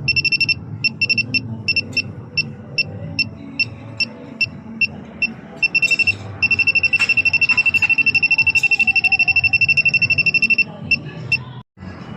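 Electronic refrigerant leak detector beeping at a high pitch: slow, uneven beeps at first, then a fast, continuous run of beeps for about four seconds past the middle that stops suddenly. The fast alarm is the sign of the sensor picking up refrigerant escaping from a microleak.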